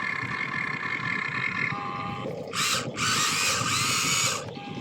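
Small electric motor and plastic gears of a toy RC construction vehicle whining with a steady rattle, then two loud grinding, ratcheting bursts in the second half.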